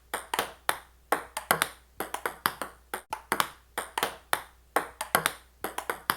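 A quick, uneven series of sharp clicks or taps, about four a second, each with a short ring.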